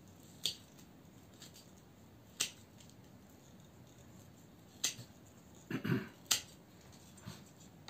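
Hand pruning shears snipping small side twigs off a blue spruce cutting: about half a dozen sharp snips a second or two apart, with a brief rustle of the twigs around the fifth and sixth.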